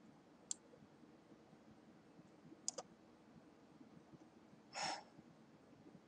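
Near silence broken by computer mouse clicks: a single click about half a second in, then a quick double click near the middle. A short breath comes near the end.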